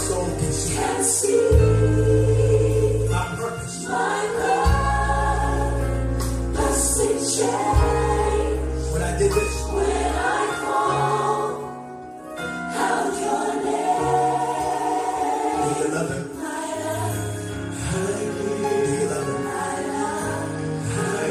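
Recorded gospel song: a choir singing over a band with long, deep bass notes, which ease off about halfway through.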